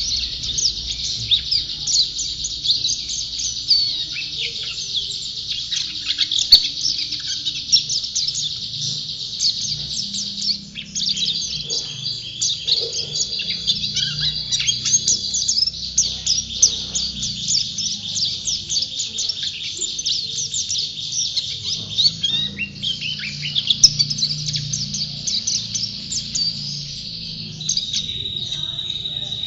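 White-eye (pleci) singing without pause: a fast, high twittering song of rapid chirps and short trills, in the vigorous 'gacor' style kept for contest birds, with a held high note near the end. A faint low hum runs underneath.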